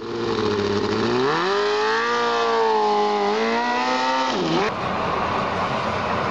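Open-wheel race car engine running and revving: its pitch climbs about a second in, holds, then drops and rises again. About a second and a half before the end it cuts abruptly to a steady rushing hiss of a high-pressure water jet spraying.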